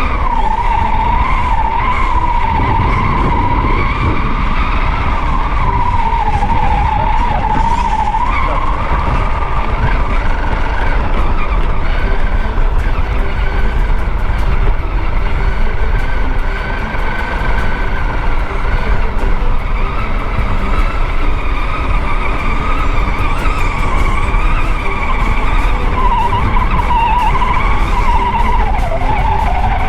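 Brushed 35T electric motor and geared drivetrain of an Axial Bomber RR10 RC crawler whining as it drives. The pitch wanders up and down with the throttle and falls away near the end as it slows, over a steady low rumble with scattered clicks.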